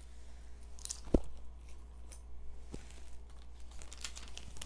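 Plastic packaging crinkling and rustling as it is handled, with a few light clicks and one sharp knock about a second in.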